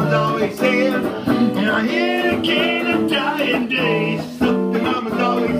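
Live band music: guitar chords with a singer's wordless vocal line gliding over them.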